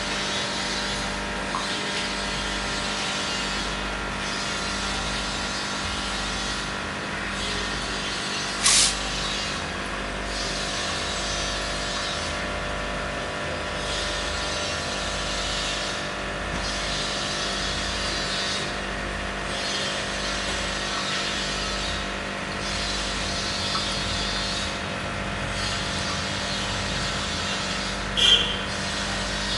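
Aquarium pump running: a steady hum with a hiss over it, broken by two short sharp knocks, one about nine seconds in and one near the end.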